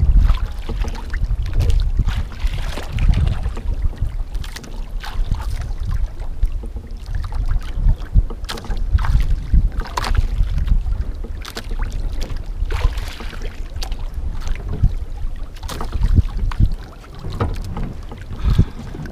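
Wind buffeting the microphone, with water sloshing and slapping against the hull and outrigger floats of a small outrigger boat. The sound rises and falls unevenly in gusts.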